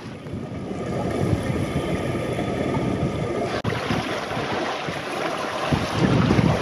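Wind buffeting the microphone over the rush of water along a sailing yacht's hull while under way, with heavier gusts near the end. The sound cuts out for an instant about halfway through.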